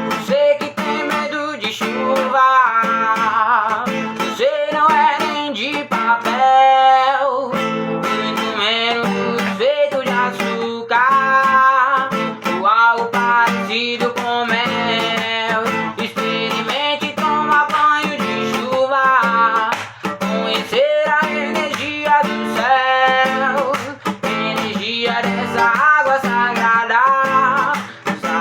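Strummed acoustic guitar playing a song with a wavering melody line over it.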